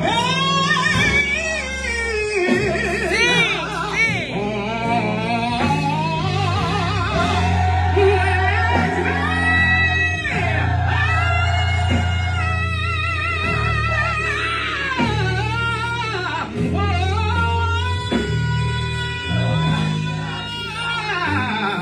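Live gospel music: a lead vocalist singing long melismatic runs with heavy vibrato over a band with sustained bass notes.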